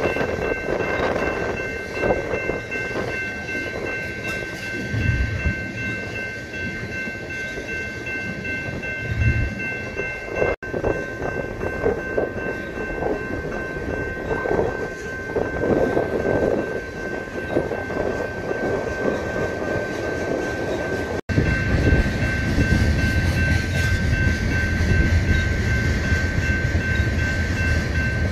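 Railroad tank cars of a long freight train rolling past: steady rumble and wheel clatter on the rails, with a steady high-pitched ringing tone over it. The sound drops out briefly twice, and the rumble is louder and deeper in the last third.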